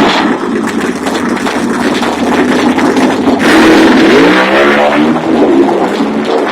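Car engine running loudly, with a rev that sweeps in pitch about four seconds in.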